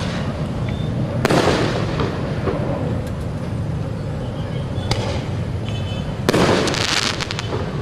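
Fireworks going off: a loud bang about a second in that trails off in crackling, a sharper pop near the middle, and a bigger burst of crackling bangs near the end.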